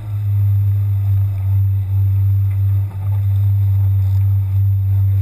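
Fishing boat's engine running steadily under way: a loud, steady low hum, dipping briefly about three seconds in.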